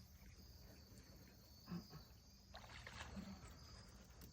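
Near silence: faint high insect trilling in the background, with a couple of soft short sounds about two and three seconds in.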